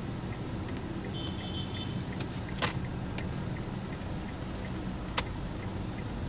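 Steady low hum of a car's engine and road noise heard inside the cabin as the car moves slowly through city traffic, with two sharp clicks from inside the car.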